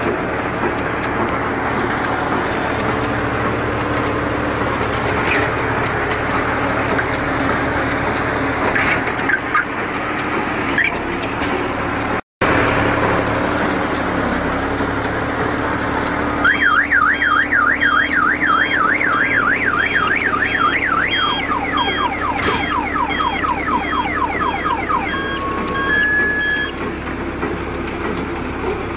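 Round baler and tractor running steadily with rattling ticks, cut off briefly about halfway. Then an electronic alarm warbles rapidly up and down for several seconds, joined by a second, lower warble.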